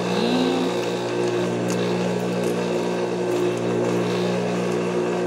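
Motor of a Juki industrial sewing machine running with a steady hum.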